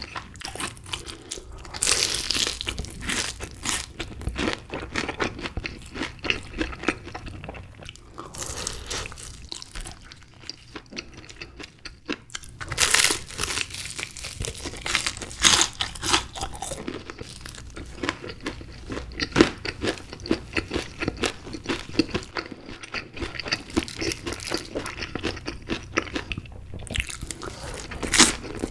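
Close-miked eating of Kyochon Honey Combo fried chicken: crisp crunching of the glazed fried coating as it is bitten and chewed, with wet chewing between several louder bursts of crunch.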